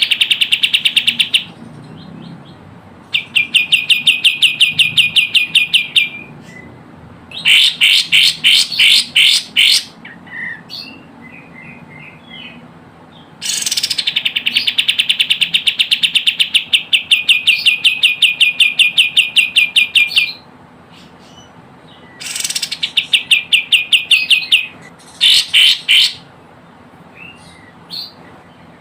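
Kapas tembak bird calling in bursts of fast, evenly repeated high notes, each chattering trill lasting one to several seconds with short pauses between, the longest in the middle. It is a lure call used to draw in wild kapas tembak.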